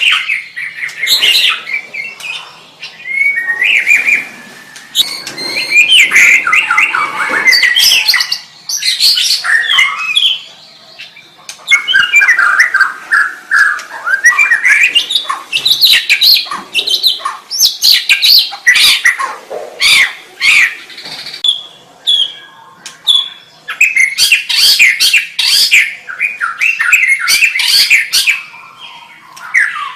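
White-rumped shama singing a long, varied song of whistled notes that glide up and down, mixed with fast runs of sharp rattling notes, broken by a couple of short pauses.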